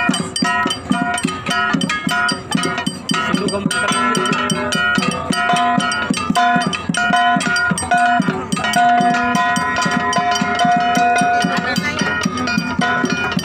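Gangsa, flat hand-held bronze gongs, struck together in a fast rhythm, their ringing tones overlapping. A long ringing note holds from about nine to twelve seconds in.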